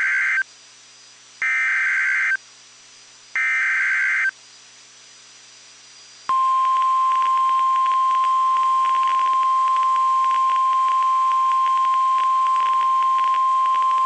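NOAA Weather Radio emergency alert signal announcing a tornado warning. It opens with the end of one short warbling digital SAME header burst and two more, each about a second long with a second's gap between them, which encode the alert for weather radio receivers. After a short pause, the steady 1050 Hz Warning Alarm Tone starts about six seconds in and holds unbroken.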